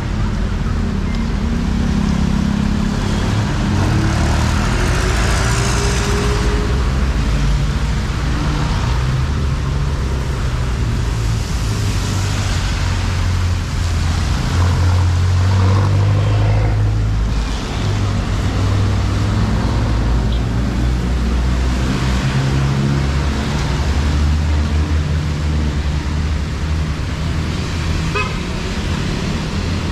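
Street traffic: engines of vehicles running close by, with several passing and a car horn tooting.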